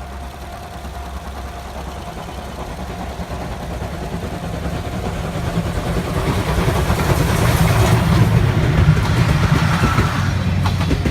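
C57 steam locomotive approaching with its train, a low rumble with rapid beats growing steadily louder and peaking about eight to nine seconds in as it draws nearest.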